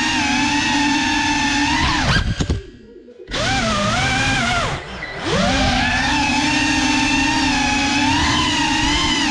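GEPRC CineLog 35 FPV cinewhoop drone's brushless motors and propellers whining, the pitch shifting up and down with throttle. About two seconds in the whine nearly cuts out for about a second as the throttle is chopped, dips again around five seconds, then picks back up and runs steadily.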